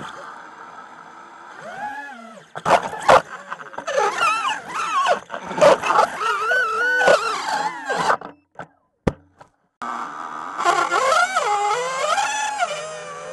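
Multirotor drone motors whining and wavering rapidly up and down in pitch, with sharp knocks as the drone thrashes against branches and grass. The motors cut out for about a second and a half, then spin back up about ten seconds in as the drone lifts off again.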